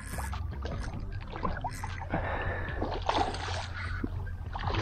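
Hooked snook thrashing at the water's surface: irregular splashes and sloshing water close by, over a steady low rumble.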